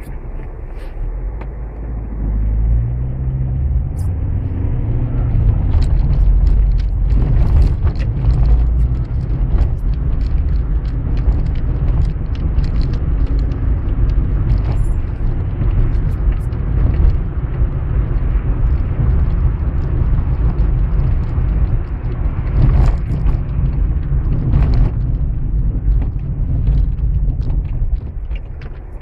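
Car engine and tyre rumble heard from inside the cabin on a wet street: the car pulls away, its engine note rising about two seconds in, runs on with a steady low rumble, then quietens near the end as it slows to a stop.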